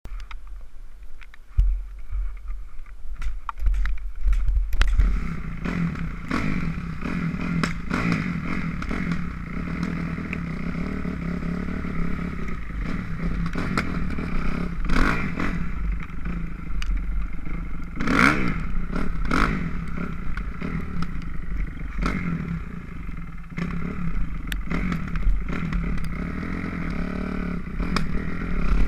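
2006 Kawasaki KX250F dirt bike's four-stroke single-cylinder engine, low and quiet for the first few seconds, then running louder from about five seconds in with its revs rising and falling. Frequent clattering knocks sound over it.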